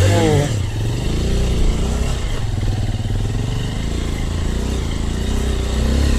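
Small single-cylinder trail motorcycle engine revving. Its pitch drops sharply in the first half-second, then it runs at low revs with small rises and falls in pitch.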